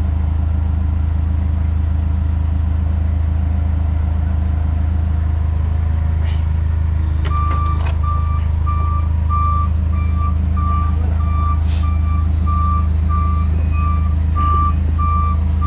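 Forklift engine running steadily. About seven seconds in, its reversing alarm starts beeping at a regular pace as the forklift backs away from the truck.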